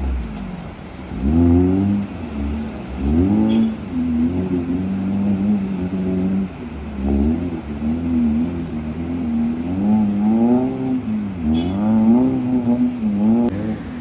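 Maruti Suzuki Gypsy 4x4 engine revving up and down repeatedly under load as it pulls through a river crossing, its pitch rising and falling every second or two.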